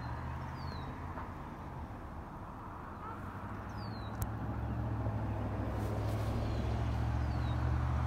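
Low rumble of road traffic, swelling as a vehicle draws nearer, with a few short, high, downward bird chirps over it.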